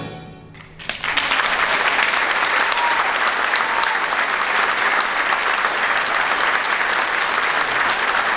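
A brass band's last chord rings out and fades, then about a second in an audience breaks into applause and keeps clapping steadily.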